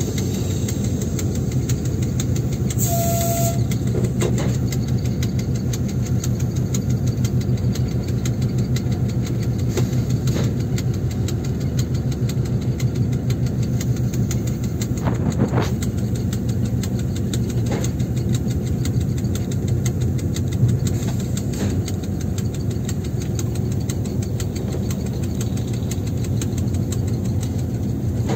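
Two-stroke V12 diesel engine of a 2M62U locomotive, heard from the cab, running steadily at low power while the locomotive creeps up to a freight wagon. A short hiss with a brief tone comes about three seconds in.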